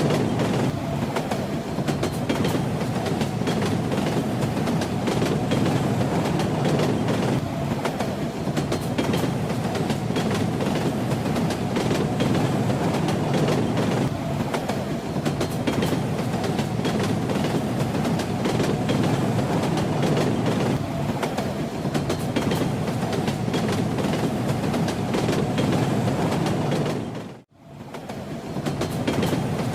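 Moving train: a steady rumble with the clatter of the wheels over the rails. Near the end it fades out for a moment and comes straight back.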